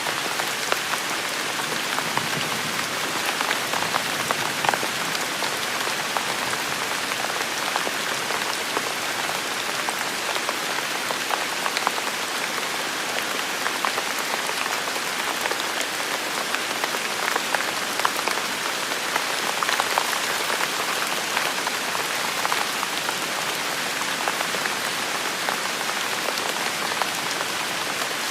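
Steady rain falling and pattering on hard surfaces, an even hiss dotted with many small drop clicks.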